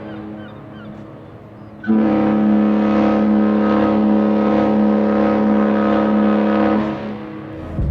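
Cruise ship horn sounding one long, steady blast of about five seconds, starting about two seconds in after a quieter stretch.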